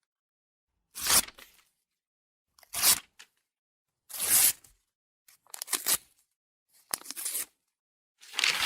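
A series of six short, separate noises from a sound-effects library, each under a second long and coming about once every second and a half, with dead silence between them.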